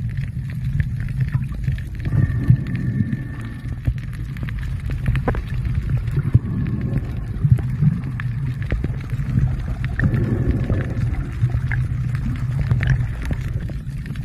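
Muffled underwater noise picked up by a camera held underwater over a reef: a steady low rumble with a few scattered faint clicks.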